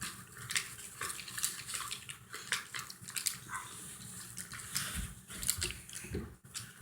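Paper cards and album pages being handled and shuffled close to the microphone: irregular rustling and small crackling clicks.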